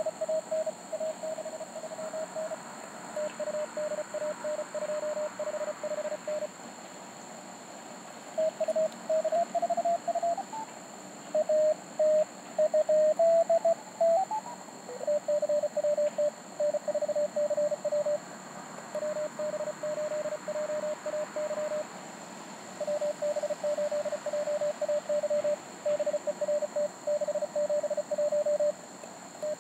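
Morse code (CW) from a Mountain Topper MTR4B QRP transceiver: a single tone of about 600 Hz keyed in dits and dahs as contest exchanges are sent and received. In the middle a signal at a slightly higher pitch comes in and slides upward.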